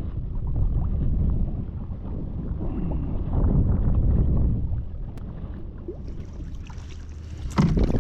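Wind buffeting the microphone in a low, steady rumble on a small plastic kayak on the water, with one sharp knock near the end.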